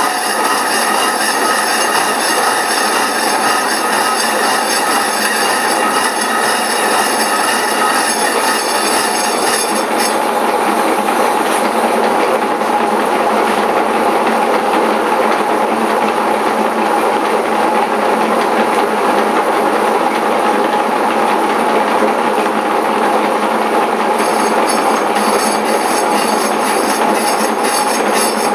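A machine cutter working through a cast aluminium bar, a continuous loud screeching cut with a high metallic whine. The whine gives way to a rougher, noisier cut about ten seconds in and comes back near the end.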